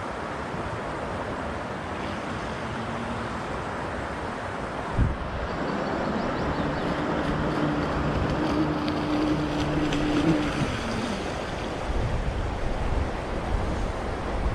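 Wind buffeting the microphone over rough water, with a knock about five seconds in and a steady motor hum from about six to eleven seconds in.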